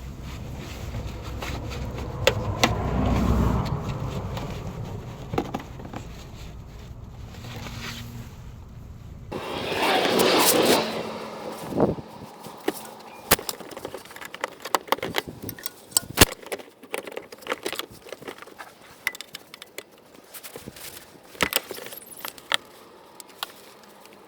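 Light metallic clicks and clinks of hand tools and parts being handled during car suspension work, an irregular run of separate taps through the second half. Before them a low vehicle rumble fades out, and about ten seconds in there is a short noisy hiss-like burst.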